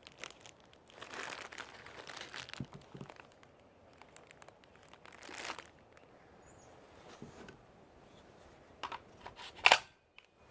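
Packaging crinkling and rustling as it is handled, in a few short bursts, with two sharp clicks near the end, the second the loudest.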